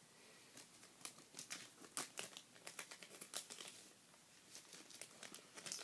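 Faint crinkling and rustling of plastic card-pack wrappers and packaging being handled and moved about, in a run of short, irregular crackles.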